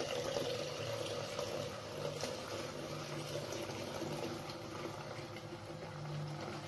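Lukewarm milk poured in a thin, steady stream from a height into an unglazed clay pot, splashing and frothing as the pot fills.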